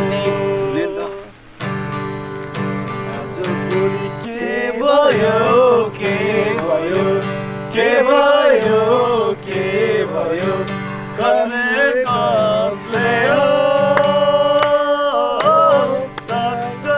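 Acoustic guitar strummed in a steady rhythm under a voice singing a Nepali song with long, held notes.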